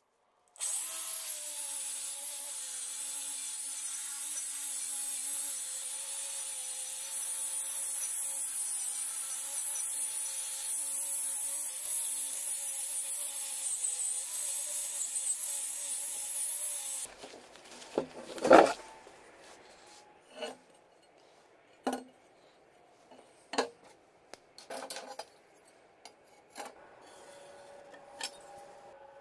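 Angle grinder running against the face of an old car flywheel, a steady high grinding hiss over the motor's hum, for about sixteen seconds. It stops suddenly, followed by one loud thump and several lighter knocks.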